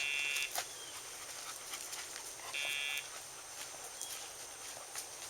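Dogtra e-collar pager buzzing through its sound box, twice for about half a second each: the collar's vibration pager signal, given with the nick (stimulation) level set to 0.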